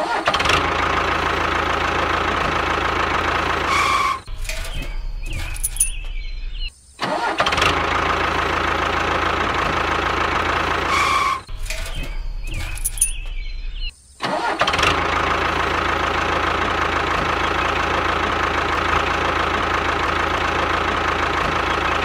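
Engine sound effect: a vehicle engine running steadily, with short breaks about 7 and 14 seconds in where the same stretch of sound starts over as a loop.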